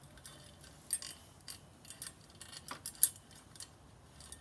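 BMX bike chain being handled and untangled by hand: its metal links clinking and rattling in a string of small, irregular clicks, with a sharper clink about three seconds in.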